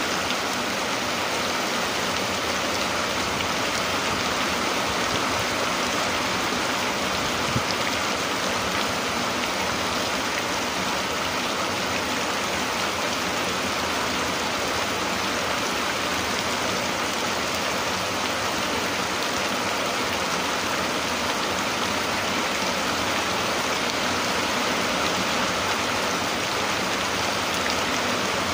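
Steady rain falling, an even, unbroken hiss of water with no change in strength.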